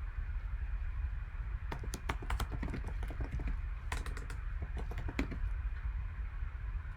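Typing on a computer keyboard in two short flurries of key clicks, the first about two seconds in and the second around four to five seconds in, over a steady low hum.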